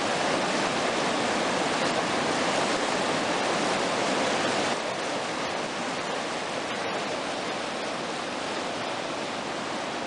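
River whitewater rapids rushing steadily; the sound steps down slightly nearly five seconds in.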